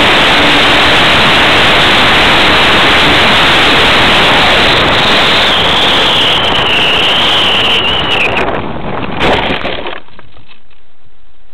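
Loud rushing airflow noise on the onboard camera of a radio-controlled model aeroplane as it lands on grass. A high whine wavers and slides down shortly before touchdown, a few knocks come as the wheels hit the ground, and then the noise falls to a quieter steady hiss once the plane has stopped.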